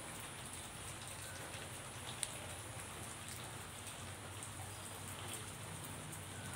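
Steady rain falling on grass, a soft even patter with scattered droplet ticks and one sharper tick about two seconds in.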